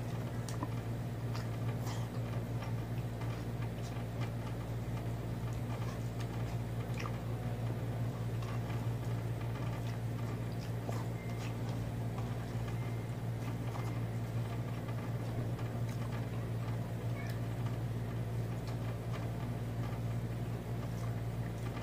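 Small scattered clicks and smacks of eating with the hands: chewing and fingers picking food from a plate, over a steady low hum.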